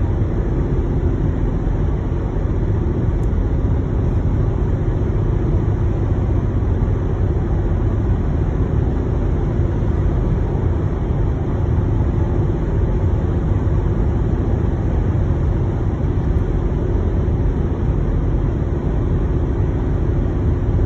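Steady low rumble of a car driving at highway speed, heard from inside the cabin: tyre, engine and wind noise.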